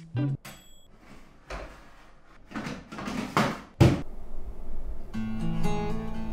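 A couple of sharp clicks from a countertop oven's dial being turned, then two swelling whooshes that build to one loud sharp hit. Plucked guitar music starts about a second after the hit.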